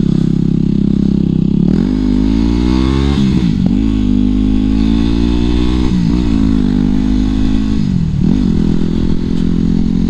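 Yamaha WR250X's single-cylinder four-stroke engine breathing through an FMF MEGA BOMB header and Q4 silencer, heard from the moving bike. It runs steadily, then the pitch climbs with three quick dips along the way.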